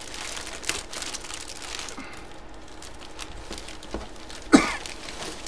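Clear plastic bag crinkling and rustling as a jersey inside it is handled and turned over, with a brief voice sound about four and a half seconds in.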